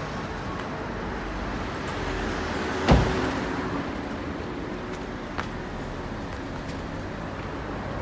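Street traffic noise with a vehicle running. About three seconds in comes one loud bang, a small utility truck's cab door being slammed shut.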